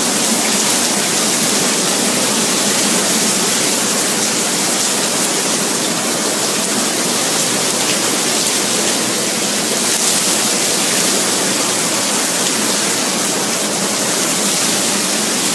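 Hurricane-force wind driving heavy rain: a loud, steady rush without letup.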